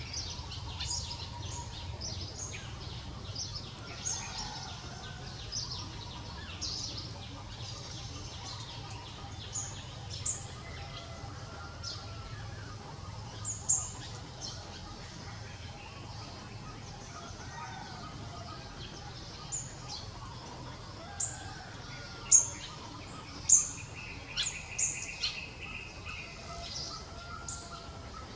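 Birds chirping outdoors: short, sharp, downward-sliding chirps come at irregular intervals, with two louder ones about four-fifths of the way in, over a steady low background noise.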